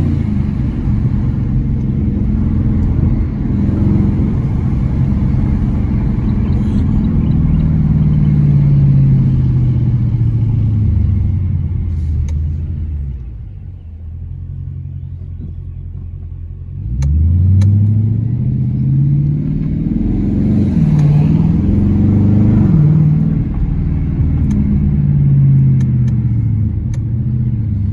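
2020 Dodge Challenger R/T's 5.7-litre HEMI V8 with its mid muffler deleted, accelerating through the gears: the exhaust note climbs and drops several times. About 13 seconds in it settles to a quieter low drone, then rises sharply about 17 seconds in as the car is pushed hard again, with more climbs and falls before easing off near the end.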